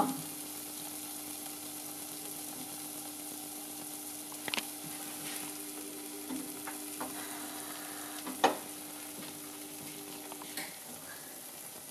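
Dough balls frying in shallow hot oil in a cast-iron pot: a steady sizzle, with a few brief knocks, the loudest about eight and a half seconds in. A steady low hum under it stops a little after ten seconds in.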